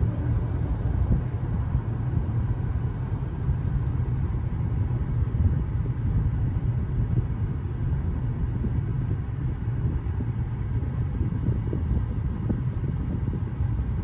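Steady low rumble of vehicle noise, with a tanker truck passing close by at the start.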